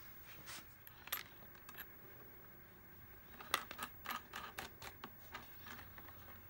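Faint small metal clicks and ticks as wing nuts are spun by hand onto threaded rods over fender washers on a shop vac filter's plastic end cap. A few scattered clicks at first, then a quicker run of them from about three and a half seconds in.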